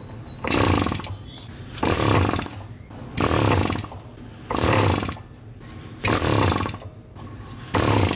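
Homemade two-stroke engine converted from a refrigerator compressor running roughly, surging in about six loud bursts a second and a half apart with weaker firing in between. The rough running comes from being slightly flooded with too much hand-squirted fuel.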